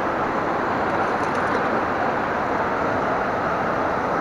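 Steady rushing of river rapids, water pouring over and between rocks.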